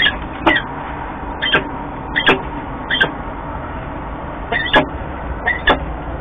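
Peregrine falcon giving a run of short calls, about eight in six seconds at uneven spacing, each dropping in pitch, as it arrives at the nest scrape for an incubation changeover. A steady low hum runs underneath.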